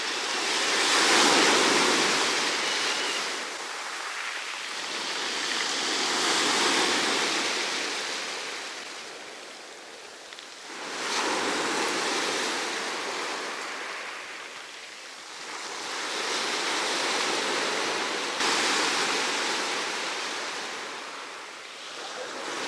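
Black Sea surf breaking and washing up the beach, the noise swelling and fading in slow waves every few seconds, a couple of them breaking suddenly.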